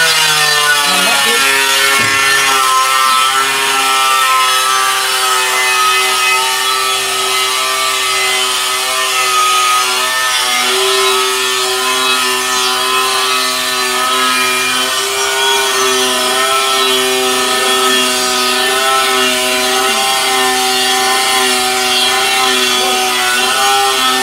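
A power tool's motor running steadily at a constant pitch, with a hiss over it.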